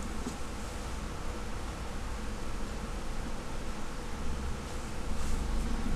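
Steady background hiss with a low hum underneath: the recording's own noise, with no distinct event.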